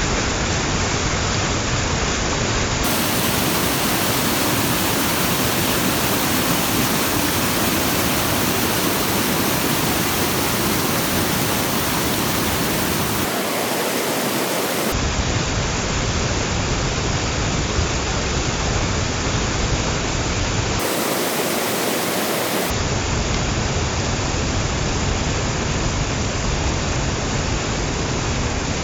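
Small waterfall: water pouring and splashing in a steady, loud rush, its tone changing abruptly a few times where the recording is cut.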